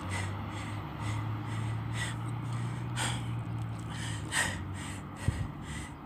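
Hard, gasping breaths from someone out of breath after running, over a low steady train engine hum that fades out about four seconds in. A single sharp thump comes near the end.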